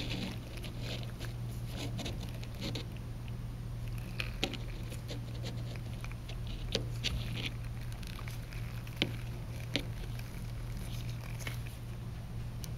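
Gloved fingers handling and turning a small metal differential micrometer head: light rubbing and scattered small clicks, with a few sharper clicks in the second half, over a steady low hum.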